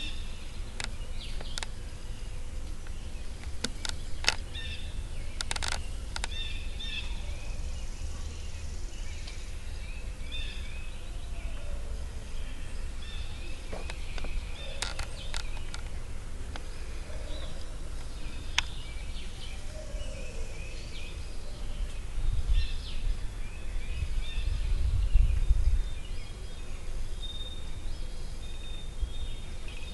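Small birds chirping and twittering in the trees, over a steady low rumble that swells about three-quarters of the way through, with a few sharp clicks scattered through the first half.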